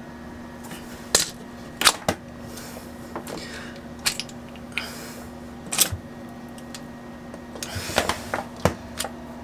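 A dripless shaft seal unit being pushed and twisted by hand onto a soap-lubricated propeller shaft: scattered sharp clicks and knocks, with a few short rubbing scuffs between them.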